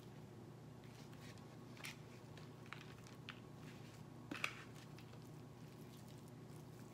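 Faint handling sounds of hands pulling apart and squeezing raw ground beef to shape a burger patty, with a few light clicks and one sharper tap a little past four seconds, over a low steady room hum.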